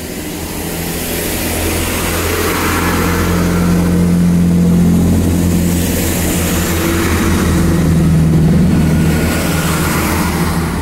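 Class 166 Networker Turbo diesel multiple unit passing close by, its underfloor diesel engines running with a steady low drone that swells twice as the cars go past, over the rush of wheels on rail.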